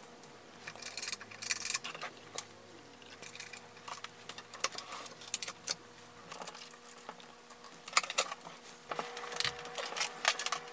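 Cables and speaker wire being handled and plugged into the back panels of powered bookshelf speakers: scattered light clicks, rattles and rustles.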